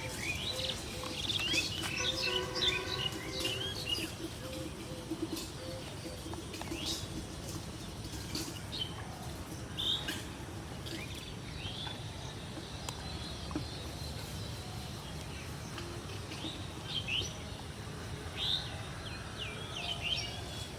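Small birds chirping and calling, with many short high chirps scattered throughout over a steady low outdoor background, and a lower held call about two seconds in.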